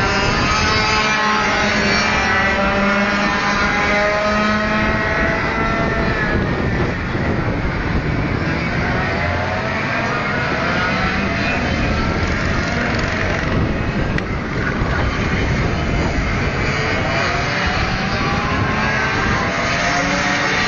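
Several 125cc six-speed two-stroke shifter racing kart engines running hard on track, their whining notes overlapping and repeatedly rising and falling in pitch as the karts accelerate, shift and brake.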